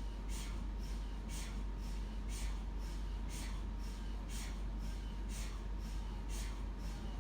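MRI scanner running a scan sequence: short hissing pulses about half a second apart in groups of three, the pattern repeating about every two seconds, over a steady low hum.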